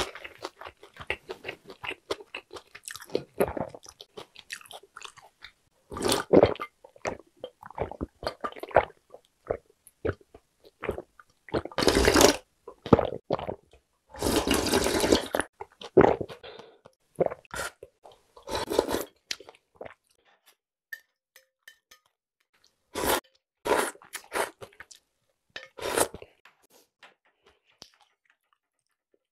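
Close-miked eating sounds: chewing and swallowing with small wet clicks, then broth of janchi guksu drunk straight from the bowl, with loud slurps and gulps in the middle.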